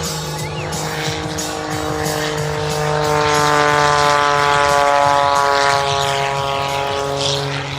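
Propeller engine of a 310-horsepower single-engine aerobatic airplane droning as it makes a low pass, swelling to loudest in the middle and falling slowly in pitch as it goes by.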